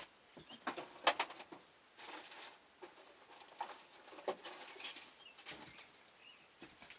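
Rummaging and handling of small hardware, likely a bag of fuel line clips, giving a string of short clicks and rustles, the loudest about a second in. Faint bird chirps are heard in the background.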